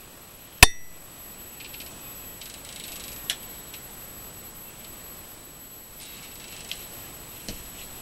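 A single sharp snap with a brief ring about half a second in: a glue-dipped wooden toothpick being snapped off in a stripped screw hole in a door jamb. Faint scratching and a few light clicks follow as the hole is packed.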